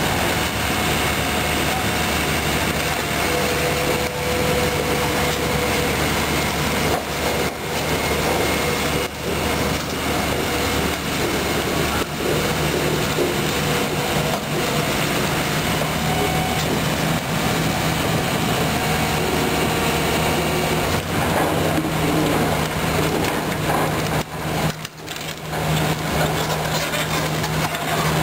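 Sany SR150C rotary piling rig's diesel engine running steadily under hydraulic load, with a few steady whining tones over the engine note.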